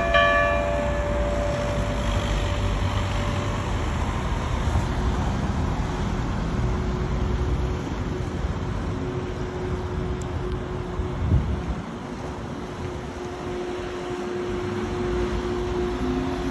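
City street traffic: cars passing and engines running in a steady rumble, with one short thump past the middle.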